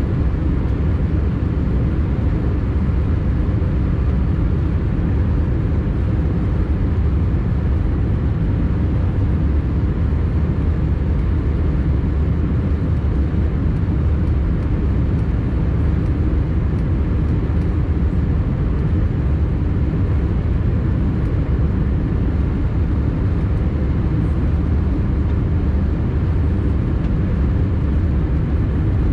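Steady low rumble and rush of airliner cabin noise inside an Airbus A320-214 in descent: airflow over the fuselage and its CFM56 engines, heard from a window seat.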